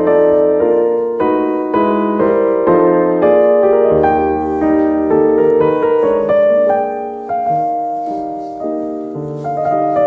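Background piano music: a steady run of single struck notes forming a gentle melody over lower held notes.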